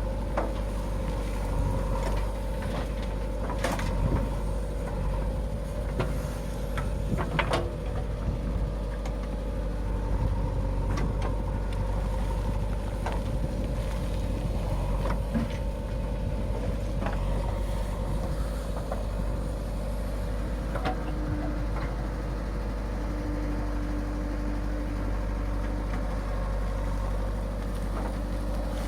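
Diesel engine of a JCB 3DX backhoe loader running steadily while it loads mud, with scattered sharp knocks and clatters throughout.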